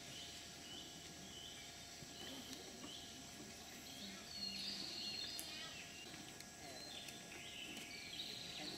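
Forest ambience with a string of short, high chirping calls about every half second. Louder, longer chirping comes in about halfway through and again near the end.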